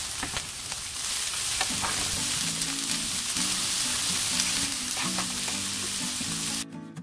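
Sliced beef and green onions sizzling in a frying pan as they are stir-fried: a loud, steady hiss that cuts off suddenly near the end.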